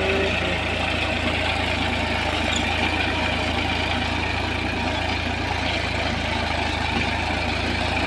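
Massey Ferguson 241 DI tractor's three-cylinder diesel engine running steadily under load as it pulls a rear-mounted plough through the soil.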